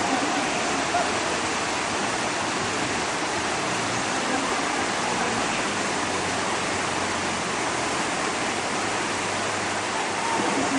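Whitewater rapids rushing, a steady loud even roar of churning river water.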